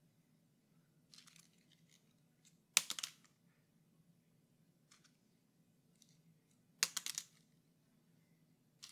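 A blank sheet of paper handled close up: two sharp, crisp paper crackles about four seconds apart, with fainter rustles between them.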